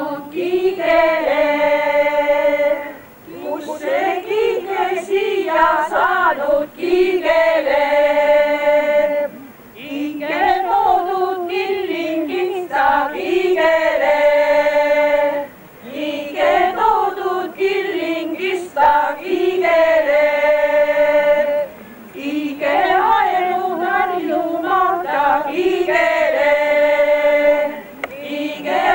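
A women's choir singing an Estonian folk song unaccompanied, in phrases of about six seconds with a short breath between each.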